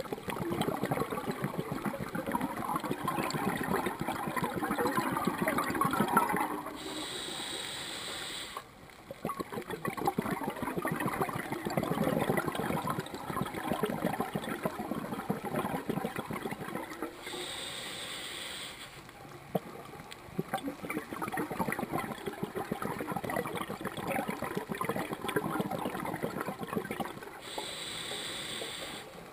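Open-circuit scuba breathing through a regulator, heard underwater: long gurgling rushes of exhaled bubbles, broken three times by a short, steady hiss of inhalation lasting about two seconds.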